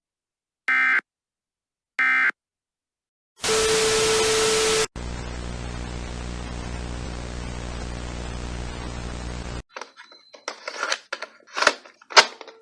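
The last two of three short screechy digital data bursts of an Emergency Alert System end-of-message code, about a second and a half apart. Then comes a burst of loud static with a low steady tone, a steady electrical buzzing hum for about five seconds, and finally irregular crackling glitch noises.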